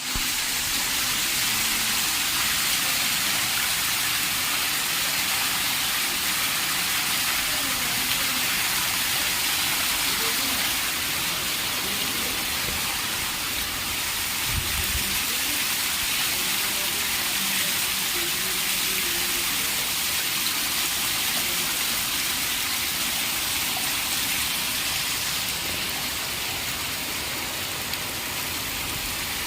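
Heavy rain falling steadily, a continuous even hiss of rain on surfaces, with a brief low thump about halfway through.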